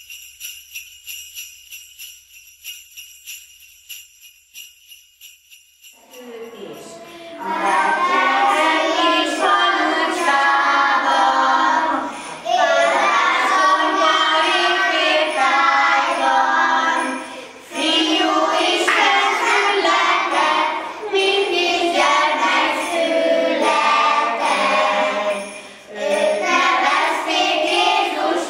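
Jingle bells ringing in a quick, even rhythm for about six seconds, then a group of young children singing a Christmas carol together in unison, phrase by phrase with short breaks for breath.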